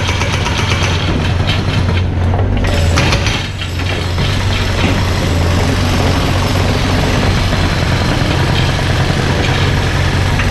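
Mini excavator's diesel engine running steadily, with a brief dip in loudness about three and a half seconds in.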